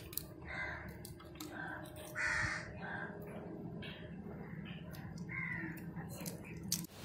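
Crows cawing repeatedly in short, harsh calls, the loudest about two seconds in, over light clicks of prawn shells being peeled by hand.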